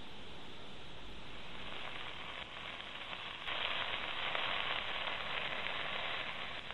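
Chopped onion sizzling in hot oil and browned drippings in a pot. A steady hiss jumps sharply louder about three and a half seconds in as the onion hits the pan, and stays loud after.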